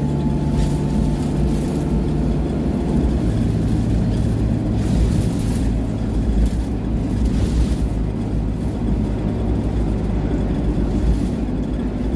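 Alexander Dennis E200 Dart single-deck bus under way, heard from inside the passenger saloon: a steady diesel engine drone with road rumble, the engine note stepping slightly about three seconds in. A few brief hisses sound around five and seven seconds in.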